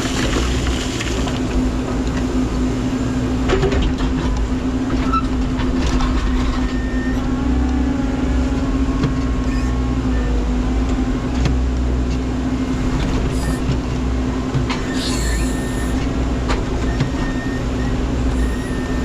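Menzi Muck spider excavator's engine running steadily with a constant hum, with a few sharp knocks and a brief scraping squeal about fifteen seconds in as it works stones.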